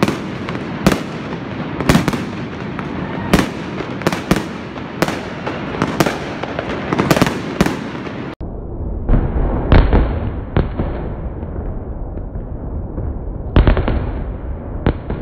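Aerial fireworks bursting in quick succession, a string of sharp bangs about one or two a second with crackle between them. About eight seconds in the sound cuts out for an instant and turns duller, with fewer bangs over a low rumble.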